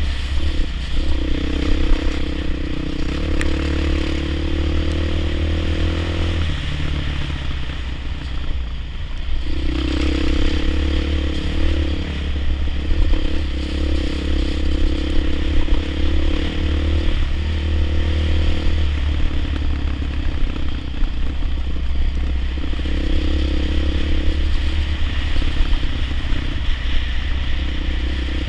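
Off-road trail motorcycle engine running under the rider, its note held on the throttle, eased off for a few seconds about a quarter of the way in, then pulling again, over a heavy low rumble.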